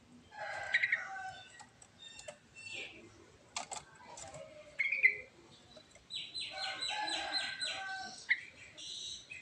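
Yellow-vented bulbul (trucuk) singing a string of short, varied calls and phrases. About two thirds of the way through comes a fast run of repeated notes, roughly ten a second.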